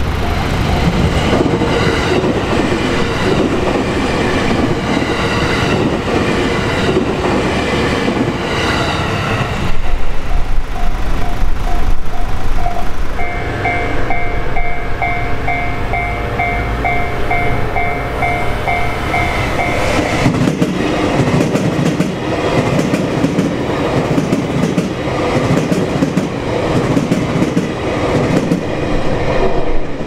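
Electric trains passing over a Japanese level crossing, the wheels clattering on the rails, while the crossing's electronic warning bell rings in a fast, even pulse. The bell stands out clearly in the middle, between trains.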